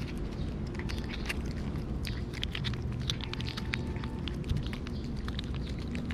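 Cat licking and lapping paste from a squeeze tube held at its mouth: a rapid, irregular run of small wet clicks from its tongue and mouth.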